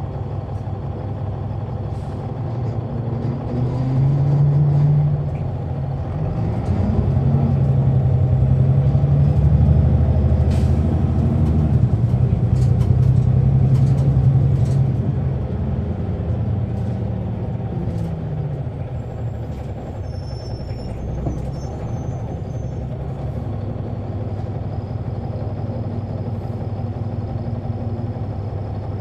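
Caterpillar C9 ACERT diesel engine of a 2004 Neoplan AN459 articulated bus, heard from on board. The engine note climbs and grows louder about six seconds in, holds strong for about ten seconds, then falls back to a steady lower drone. A few sharp clicks and rattles come near the middle.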